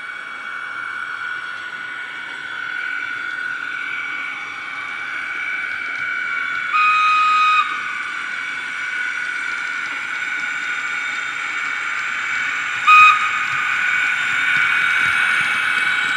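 Heljan ES1 electric locomotive model running on DCC sound through its loudspeaker: a steady electric whine that grows louder as the locomotive approaches. It sounds one long whistle blast about seven seconds in and a short toot about thirteen seconds in.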